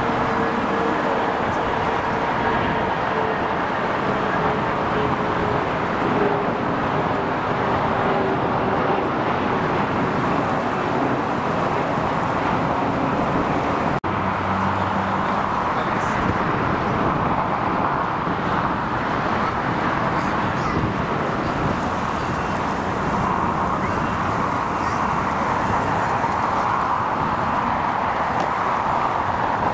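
Steady airport ambience: a constant roar of distant jet engines and road traffic. A faint tone slides slowly down in pitch over the first several seconds, and there is a brief dropout about fourteen seconds in.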